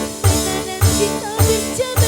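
Live dangdut music from a keyboard band, with a singer's voice over held keyboard notes and a steady drum beat landing about every half second.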